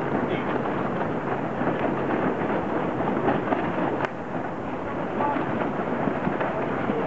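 Wind buffeting the microphone over rushing water: a loud, steady, dense crackle with no engine tone in it.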